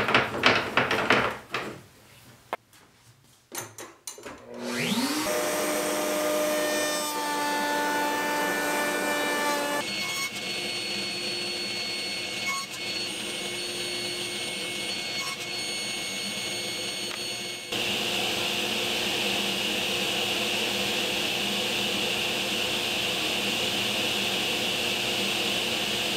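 Woodworking power tools: a few knocks and clicks, then a router motor spins up about four seconds in with a rising whine and runs steadily. The machine noise carries on, changing near ten seconds as the table saw takes over, and becoming a louder, even hiss from about eighteen seconds.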